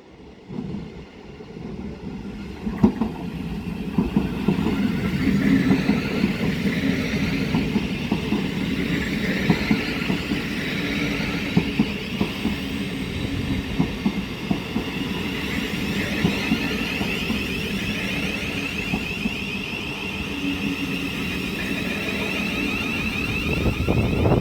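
Thameslink Class 700 electric multiple unit running into the platform, its wheels clicking over the rail joints. It grows louder over the first few seconds, then carries on steadily, with a high whine in the later part.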